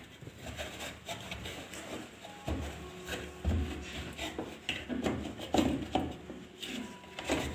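Handling noise from cleaning a washing machine: a cloth rubbing, with scattered small knocks and two low thumps about two and a half and three and a half seconds in.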